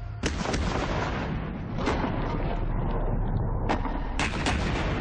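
Model magnetic mine detonating under a model ship: a sharp blast about a quarter second in, then continuous rumble with several more sharp cracks. The mine goes off because the ship's degaussing coil has been switched off, leaving the hull's magnetism to trigger it.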